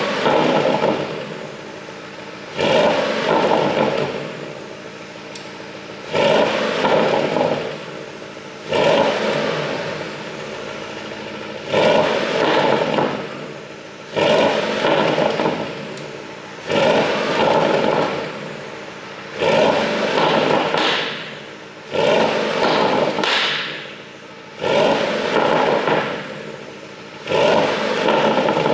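Porsche Panamera Turbo S E-Hybrid's twin-turbo V8 revved hard about ten times, one blip every two and a half to three seconds, each rising sharply and falling away. The overrun burbles and pops, the sound of a pop-and-crackle ECU tune.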